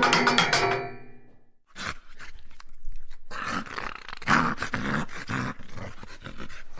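A percussive music clip dies away in the first second and a half. Then an animal's rough, dog-like vocal sounds come in a series of short stretches, loudest about four and a half seconds in.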